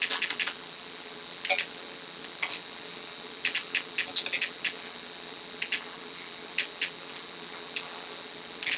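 Irregular light clicks and ticks, some in quick clusters and some alone, over a faint steady hum.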